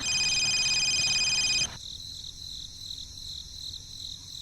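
A loud, steady, high-pitched buzz that cuts off suddenly about a second and a half in, leaving a steady high chirring of insects.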